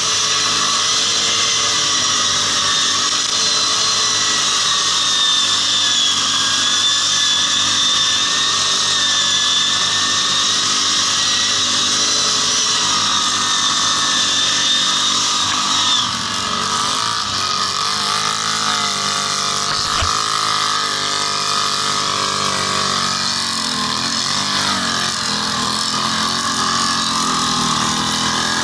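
ATV engine running while being ridden, with a steady high-pitched whine. About halfway through, the whine cuts off suddenly and the engine note rises and falls as the revs change.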